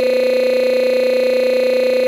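A steady electronic tone held at one unchanging pitch with several overtones, loud and unbroken, with no change in level.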